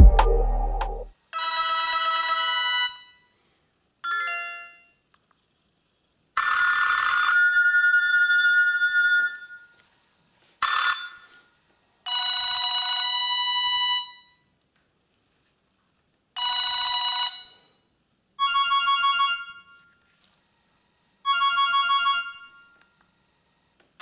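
Panasonic KX-TF200 phone's built-in ringtones previewing one after another through its small speaker as the ringtone list is scrolled: eight short electronic melodies, each a second or two long with silent gaps between, the last two quick pulsing trills. A loud low hum fades out in the first second.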